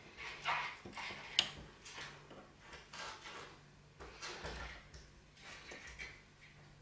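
Faint metal clicks and scrapes of a pick tapping and lifting the levers inside a lever padlock, with one sharper click about a second and a half in.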